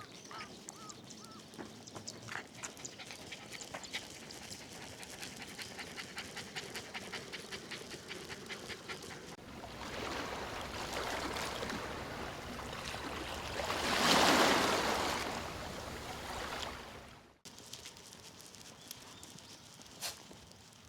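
A Shiba Inu panting in a quick, even rhythm. After about nine seconds a rushing noise swells, peaks and then cuts off abruptly.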